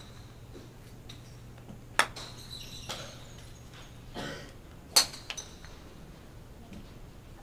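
Golf driver striking a teed ball: a sharp, ringing click about two seconds in, followed by another sharp strike about three seconds later.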